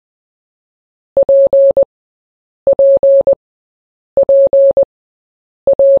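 Morse code beep tone keying the letter P, dot-dash-dash-dot, repeated four times with about a second and a half between repeats.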